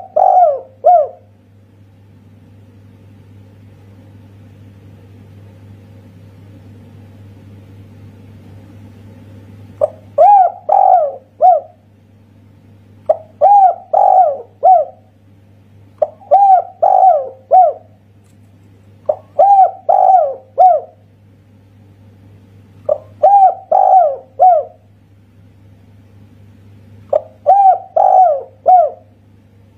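Spotted dove (tekukur) cooing in the one-kuk ('kuk satu') style. One phrase comes at the start, then about nine seconds without calls, then six phrases about every three seconds, each of three or four rising-and-falling notes. A low steady hum runs underneath.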